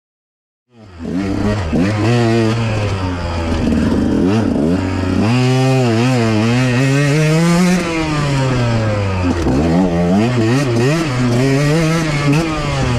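Motorcycle engine revving up and down, its pitch rising and falling over a few seconds at a time. It starts abruptly about a second in.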